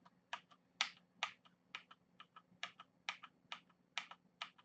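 Keys on a Corsair K70 LUX mechanical keyboard with Cherry MX Red linear switches pressed one at a time, faint separate keystrokes at about two to three a second.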